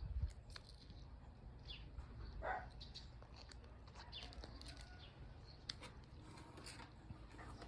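Wild birds chirping, with short high calls scattered throughout and one stronger call about two and a half seconds in, over a faint low rumble.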